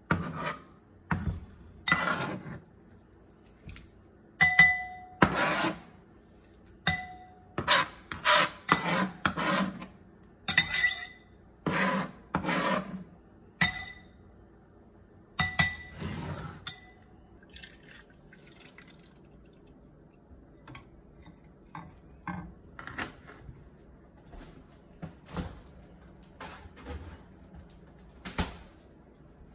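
A knife scraping and tapping chopped vegetables off a plastic cutting board into a glass mixing bowl, with the glass bowl clinking and briefly ringing. It is a string of short clatters, busiest in the first half, then lighter scattered taps.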